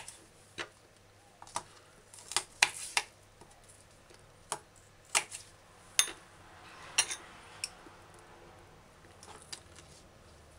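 Kitchen knife cutting asparagus on a plastic cutting board: about a dozen sharp, irregular taps of the blade on the board.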